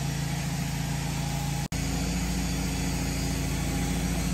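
Wood-Mizer LT15 portable sawmill's engine running steadily in the background as a log is being sawn, with a momentary dropout in the sound about one and a half seconds in.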